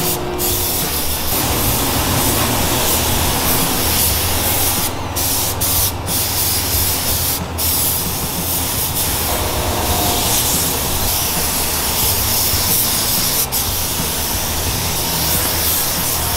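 Fuji gravity-feed spray gun hissing steadily as it sprays black paint, the hiss cutting out for a moment several times when the trigger is let go.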